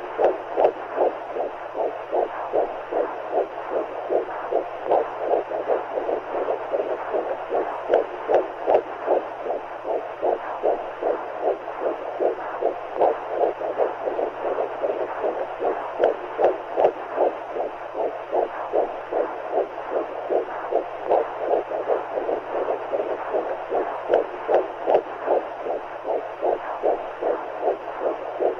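Womb sound: a steady, even heartbeat as whooshing pulses over a constant rushing hiss of fluid, with a faint low hum.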